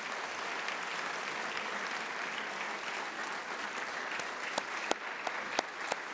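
A large audience applauding steadily, with single sharp claps close by standing out from about two-thirds of the way in, a few a second.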